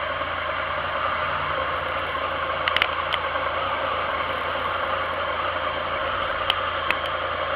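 Motorcycle engine idling steadily. A few sharp clicks, a small cluster about three seconds in and a few more near the end.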